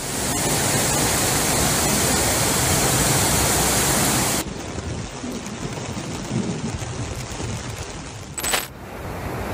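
Muddy floodwater rushing in a torrent: a loud, steady rush that drops suddenly to a quieter, duller rush about four and a half seconds in. A brief sharp noise sounds over it near the end.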